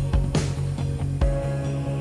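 Background music with a steady drum beat over sustained tones.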